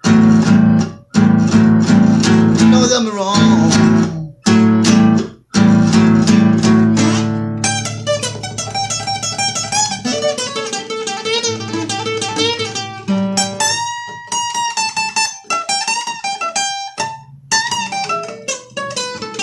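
Acoustic blues guitar playing an instrumental passage. The first few seconds are loud strummed chords stopped short several times, then single-note picked licks with some bent notes.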